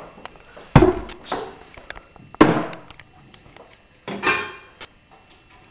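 Three loud bangs, about one and a half seconds apart, each dying away quickly.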